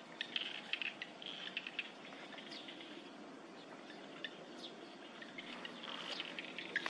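Countryside ambience: small birds chirping in short, scattered calls, some with quick falling notes, over a low steady background hum.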